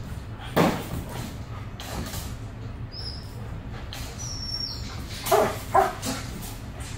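Dogs barking in wire kennel runs: a sharp bark about half a second in, then two loud barks in quick succession near the end, with faint high-pitched whines in between.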